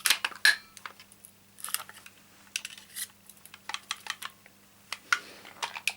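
Card stock and small craft tools being handled on a work surface: irregular light taps, clicks and paper rustles.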